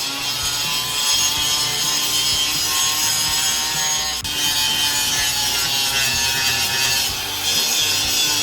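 Angle grinder cutting and grinding through a steel bumper bracket welded to a pickup's frame, running steadily under load with a high whine over gritty noise.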